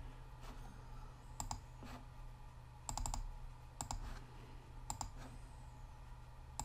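Computer mouse clicking a few times, mostly in quick pairs like double-clicks, with a quick run of three or four clicks about three seconds in, over a faint steady low hum.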